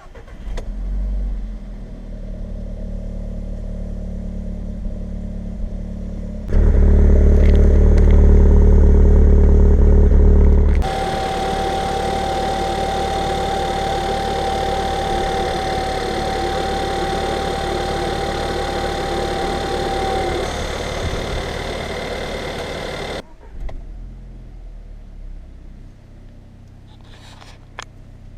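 TFSI petrol engine running at idle, its sound changing abruptly several times. A steady high tone sits over it for about ten seconds in the middle.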